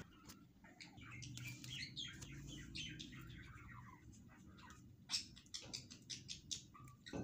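Small birds chirping faintly in the background over a low steady hum. A patter of sharp clicks comes in the last couple of seconds as rice is tipped into the pot.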